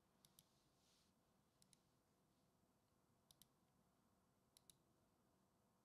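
Faint clicks of a computer mouse button, four quick double clicks spaced about a second and a half apart, over near silence.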